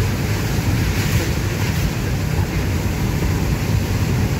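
Steady rumble of a vehicle's engine and tyres on a wet road, heard from inside the cab.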